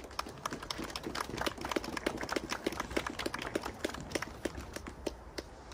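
Small group applauding by hand, scattered claps that thin out near the end.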